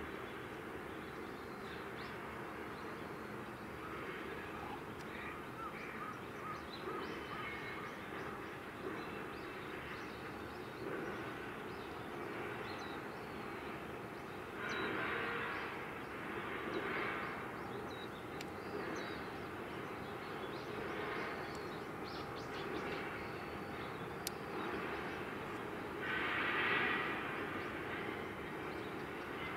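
Distant shipyard and harbour noise: a steady mechanical drone with louder swells of hiss about halfway through and again near the end.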